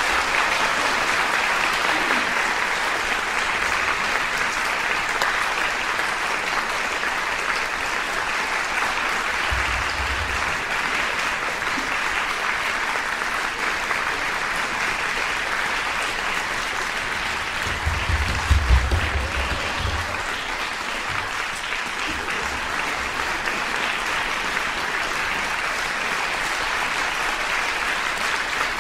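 Concert hall audience applauding steadily, with a few low thumps about ten seconds in and again past the middle.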